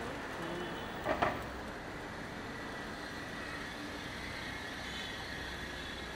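City street traffic at an intersection: a steady wash of passing electric scooters and cars, with a short, louder double sound about a second in.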